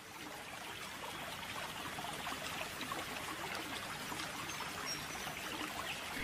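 Running water, a stream trickling and babbling steadily after fading in over the first second or two.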